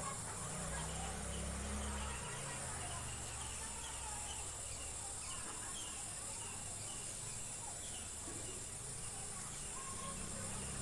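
Insects, crickets among them, keep up a steady high-pitched trill, with short bird chirps scattered through it. A low rumble sounds in the first couple of seconds.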